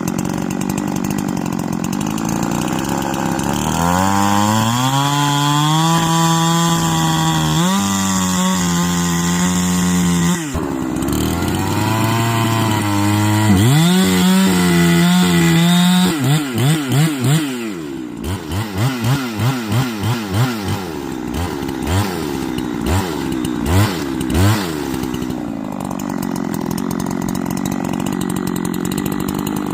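Custom Holzfforma G372XP two-stroke chainsaw bucking wood: run at high revs through two long cuts, its pitch sagging and recovering under load. It is then revved repeatedly in quick blips before settling to idle near the end.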